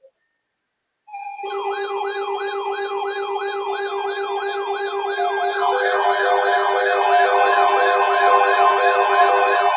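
Sirens begin about a second in with a fast rising yelp, about three or four sweeps a second, over a steady tone. From about halfway a second siren and a pulsing tone join and it grows louder. It works as the opening attention siren of an emergency alert.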